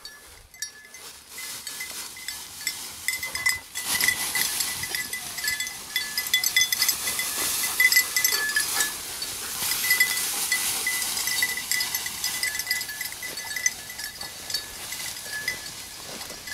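A small bell on a German shorthaired pointer's collar jingling irregularly as the dog works through dense cover, over the rustle of dry grass and brush that begins about four seconds in.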